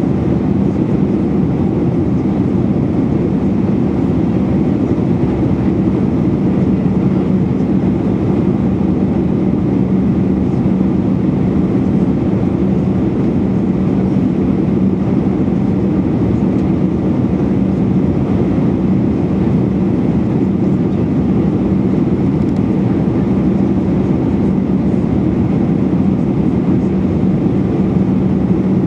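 Steady cabin noise inside an Airbus A319-111 seated beside the wing: the rush of its CFM56-5B5 turbofan engines and the airflow on the descent, with a steady low hum.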